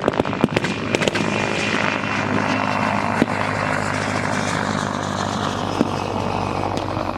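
A rapid burst of blank gunfire in the first second, then the steady drone of a propeller aircraft's engine passing, sinking slightly in pitch, with a couple of single shots.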